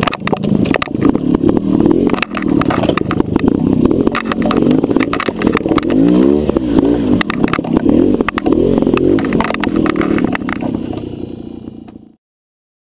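Trials motorcycle engine running and revving up and down as the bike picks its way over rough ground, with frequent sharp knocks. The sound fades out near the end into silence.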